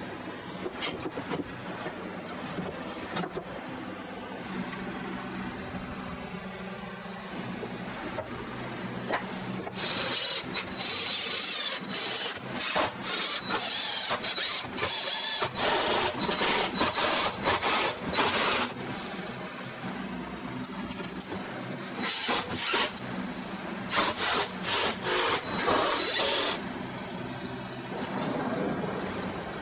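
Cordless DeWalt impact driver driving screws into stacked pine boards, in repeated bursts of one to three seconds with a steady high whine, bunched in two runs in the second half. Before them, quieter knocking of wooden blocks being handled.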